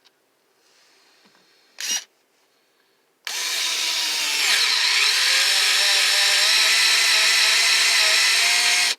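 Hyper Tough 4V Max lithium-ion cordless screwdriver driving a screw into oak: a short blip about two seconds in, then a steady motor whine for about six seconds. Its pitch dips as it takes the load, then holds as the screw turns on and strips out its hole.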